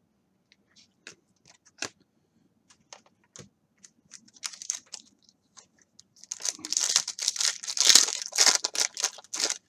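A trading-card pack's wrapper being torn open by hand and crinkling, starting about six seconds in and loudest near the end, after a few light taps and clicks of cards being handled.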